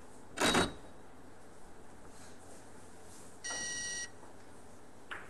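A short, loud clatter of billiard balls as a shot is played on a carom billiards table about half a second in, then a single electronic beep lasting about half a second around three and a half seconds in, as the points are scored; a light click near the end.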